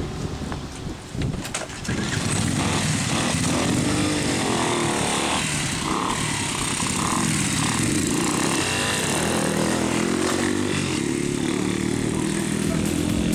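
Two small motorcycles running and pulling away, the engine sound coming up about two seconds in, with the pitch rising and falling as they are revved.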